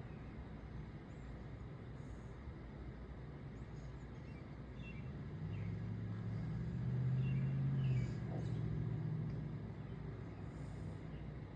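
A vehicle passes by, its engine and tyre hum swelling to a peak about two-thirds of the way through and then fading away, over a steady low outdoor background.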